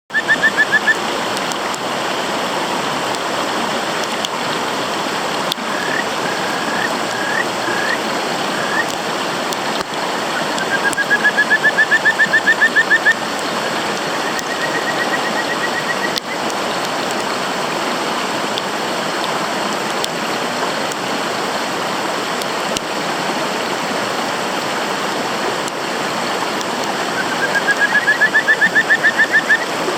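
Kajika frogs (Buergeria buergeri) giving their advertisement call: a few separate whistled, upswept notes and several quick trills that rise in pitch, repeated in bouts. Steady rushing water runs underneath.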